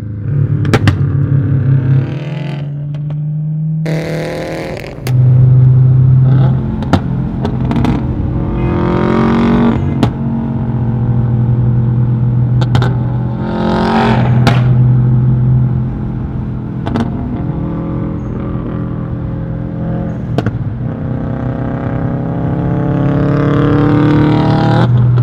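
A 2015 Subaru WRX STi's turbocharged flat-four boxer engine through a Tomei Expreme Ti titanium catback exhaust, pulling hard with the revs climbing several times and settling into a steady drone between. Short sharp cracks come from the exhaust here and there.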